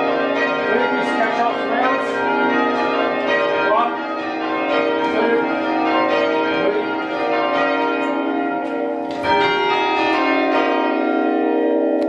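A ring of six church bells (tenor 7-3-11 cwt, in B-flat) rung full-circle from ropes, heard from the ringing chamber below: a steady run of overlapping strikes. One stroke stands out louder about nine seconds in.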